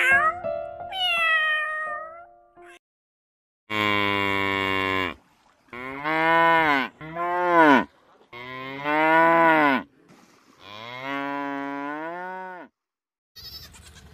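A cat meows twice at the start. After a short pause, water buffaloes moo five times in long, pitched calls, most of them rising and then falling in pitch.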